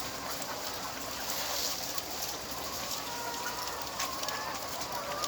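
Flock of laying hens in a poultry shed: a steady din of soft clucking and calls over a constant hiss.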